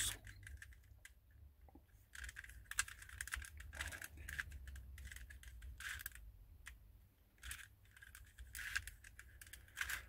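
Faint, irregular clicking and scraping as the layers of a 2x2-based twisty-puzzle chess rook, cast in polyurethane resin, are twisted by hand while it is being solved.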